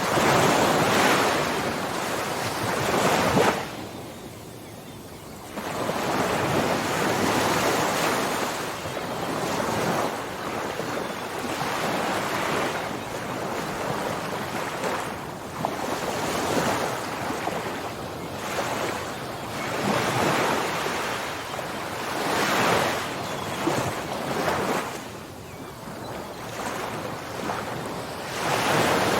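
Ocean surf: waves breaking and washing up, a rushing sound that swells and ebbs every few seconds, with a brief lull about four seconds in.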